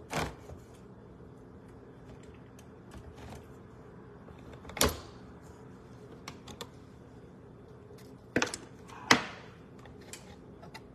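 Kitchen handling noises: a few scattered sharp knocks and clinks. The loudest come about five seconds in and again near the end, each ringing briefly, over a faint steady hum.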